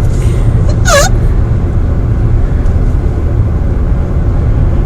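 A woman's single short, high, squeaky hiccup about a second in, its pitch dipping and then rising, over a steady low rumble.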